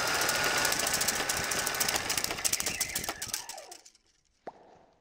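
A film-projector-style clattering sound effect: a fast, steady run of mechanical clicks over a hissing wash, with a faint high tone, fading out about four seconds in. A single sharp click follows near the end.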